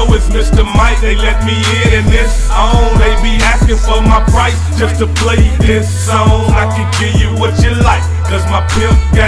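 Hip hop track: a vocal over a heavy bass line and regular drum hits.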